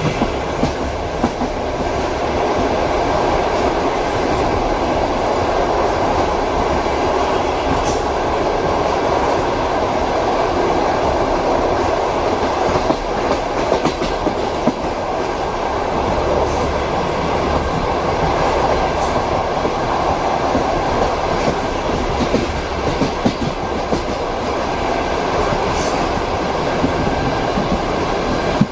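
Train wheels clattering along the rails, heard from inside a passenger compartment: a steady rolling rumble with occasional sharp clicks.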